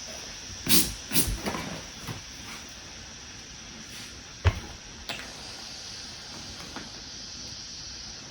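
Steady hiss of air being drawn in through the open valve of a self-inflating foam sleeping pad as it inflates itself. Handling rustles and clicks come in the first two seconds, with a sharp knock about four and a half seconds in.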